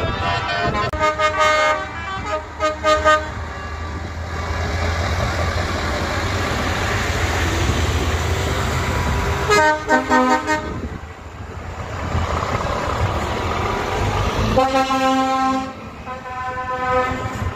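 Truck air horns honking in repeated blasts: a string of short blasts in the first three seconds, another burst about ten seconds in, and a longer run of blasts near the end. Between the blasts, the engines of passing trucks rumble.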